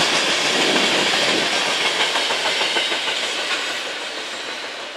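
Loaded freight train's last gondola cars rolling by on the rails: steady steel-wheel hiss with a few wheel clicks, fading away as the end of the train passes and recedes.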